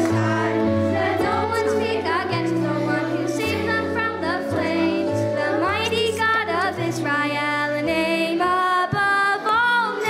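A song: voices singing with vibrato over instrumental backing, with low bass notes stepping about once a second.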